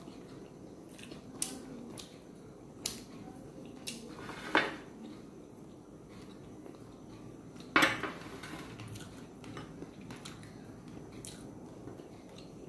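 Metal serving spoon clinking against white ceramic bowls and a plate as curry is scooped out, a handful of sharp clinks with the two loudest ringing briefly about four and a half and eight seconds in.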